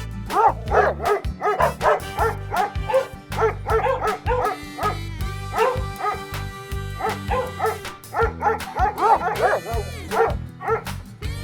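A dog giving short, high yips and barks in quick succession, several a second, over background music.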